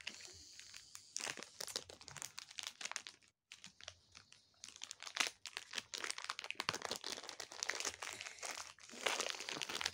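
Clear plastic packaging crinkling as it is handled and pulled off a small mould, in irregular crackles with a brief lull about three and a half seconds in.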